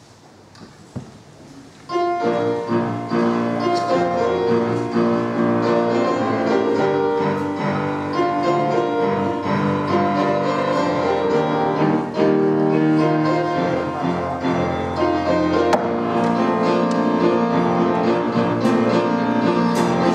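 A live church band starts a song intro about two seconds in, after a couple of quiet seconds. The music is led by piano or keyboard and has no singing yet.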